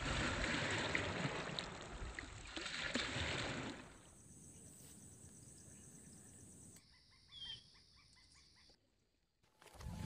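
Small waves breaking and washing onto a reservoir shore for about the first four seconds, then faint outdoor ambience with a brief chirp about seven seconds in. Music starts just before the end.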